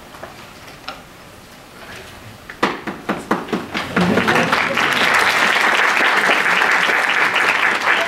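Audience applauding: a few scattered claps begin between two and three seconds in, swelling into full, steady applause about four seconds in.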